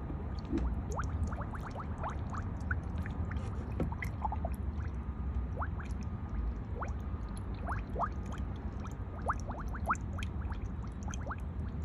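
Coolant gurgling and bubbling in a car's expansion tank, many small bubble pops as trapped air works its way out of the cooling system while it bleeds. A steady low hum runs underneath.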